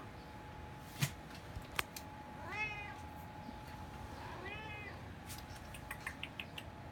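A domestic cat giving two short meows about two seconds apart, each rising then falling in pitch, with a few light clicks around them.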